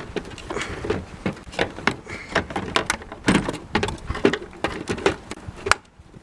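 Irregular hard plastic clicks, knocks and rustling from handling a car tail light assembly as it is fitted back into place, with one sharper click near the end.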